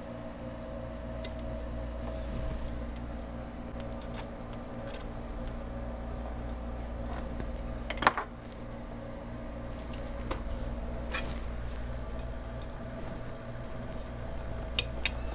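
Steady air-conditioner hum, with scattered clicks and clatters of metal parts and connectors being handled as the computer's back plate and cables are refitted; one sharp click about halfway through and a few more near the end.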